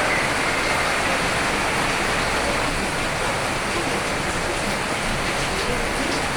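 Steady rainfall: an even, dense hiss with no single drops or other events standing out.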